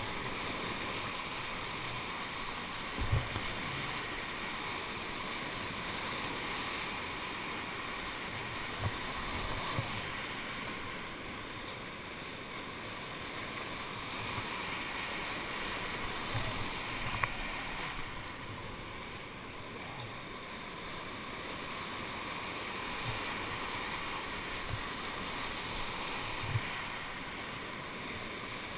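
Whitewater rushing and churning around a kayak playing in the hole at the foot of a rapid, a steady wash of water noise broken by a few short low thumps.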